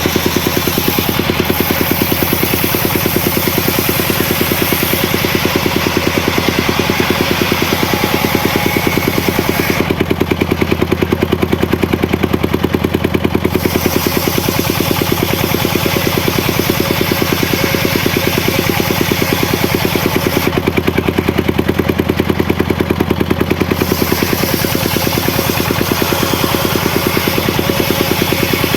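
Engine of a homemade circular-saw rig running steadily with an even, fast firing beat. Twice, for a few seconds each, the higher hiss fades and the low drone grows stronger.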